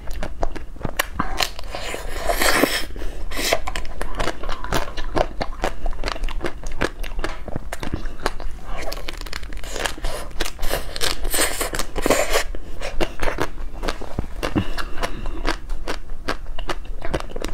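Frozen ice cream bar bitten and chewed right at a clip-on microphone: a dense, unbroken run of crisp crunches and crackles.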